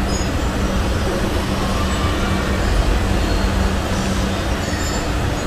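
Domestic cat snoring in its sleep: a steady low rumble.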